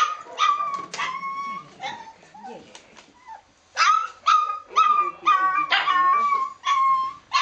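Dalmatian giving short, high-pitched whining yelps, a few at first, then after a brief lull a quick run of repeated cries, the sound of a dog eager to be taken out.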